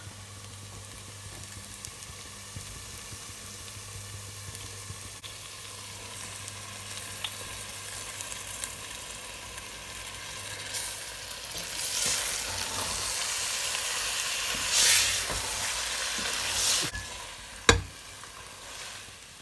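Chicken pieces frying in an oily onion-tomato masala in a pan: a steady sizzle that gets louder about halfway through as the pan is stirred, with one sharp knock near the end.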